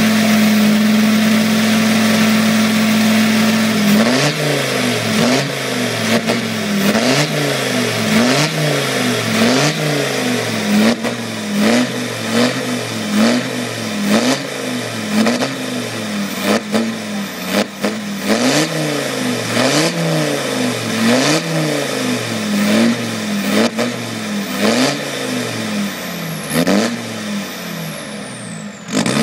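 Land Rover Defender 90 engine held at high revs for a few seconds, then revved over and over, the pitch rising and falling about once a second. It is being worked hard to clear out the cobwebs.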